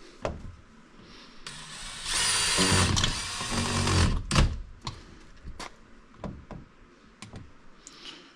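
Power drill driving a stainless steel screw, running hard for about two and a half seconds, then a sharp knock and a few light clicks.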